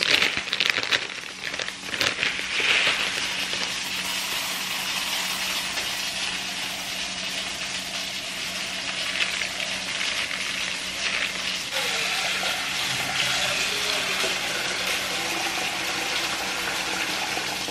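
Dry basmati rice poured from a bag into a saucepan, then tap water running steadily into the pot to fill it.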